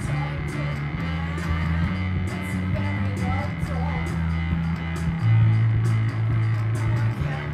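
Live rock band music: electric bass, keyboards and a steady beat, with a woman singing.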